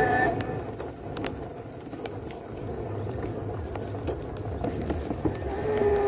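Steady low rumble of a rickshaw van riding along a rough dirt road, with scattered rattling clicks. Background music cuts out just after the start and comes back near the end.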